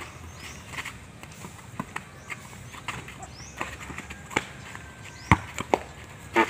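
Basketball bouncing on a packed-dirt court and players' feet scuffing as they run, heard as irregular dull thuds. The loudest thud comes about five seconds in.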